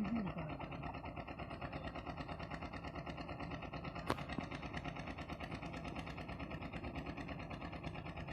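A motor running steadily with a fast, even pulsing, and a single sharp click about four seconds in.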